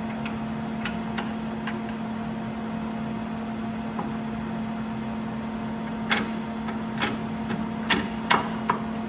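Light metallic clinks and taps of bolts, washers and the control arm being handled and fitted to the frame mount: a few faint ticks early, then about five sharper clinks in the last three seconds. A steady hum runs underneath throughout.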